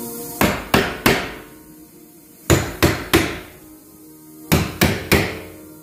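Steel claw hammer striking a metal pin into the edge of a melamine-faced chipboard panel: three groups of three quick blows, the groups about two seconds apart.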